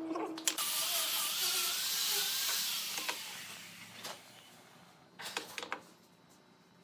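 Felt-tip marker scratching on a pine board with a wavering squeak as it traces around a wood slice, fading out about three seconds in. Then a few light knocks about four seconds in and a short run of them near the end.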